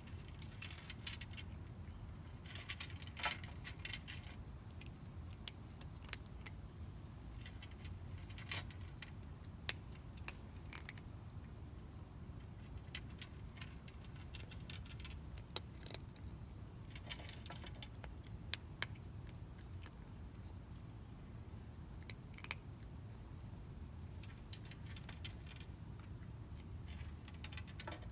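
A cat eating dry food: faint, irregular crunches and small clicks, some closely bunched, over a low steady rumble.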